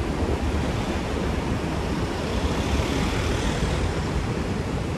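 Street traffic noise: a steady low rumble from passing cars and vans, with a hiss that swells slightly about halfway through.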